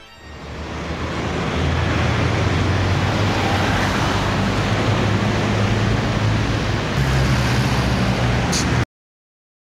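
Street traffic: a steady wash of passing cars with low engine rumble. A heavier engine swells in about seven seconds in, and the sound cuts off abruptly shortly before the end.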